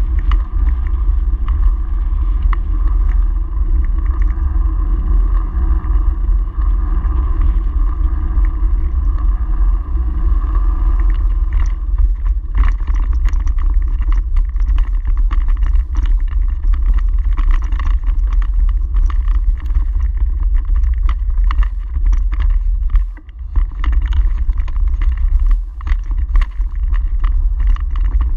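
Wind buffeting the microphone of a handlebar-mounted camera on a moving bicycle. About twelve seconds in, the bike rolls onto cobblestones and the ride turns into constant irregular rattling and knocking from the frame and camera mount.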